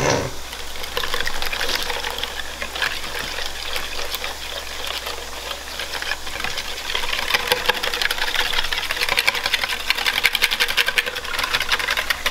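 Wire whisk beating a wet batter in a mixing bowl: a rapid, steady clatter of the wires against the bowl, getting faster and a little louder about halfway through.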